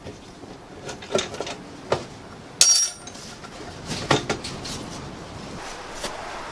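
Metal objects clanking and clinking as they are handled: a handful of separate knocks, the loudest one about two and a half seconds in with a short metallic ring.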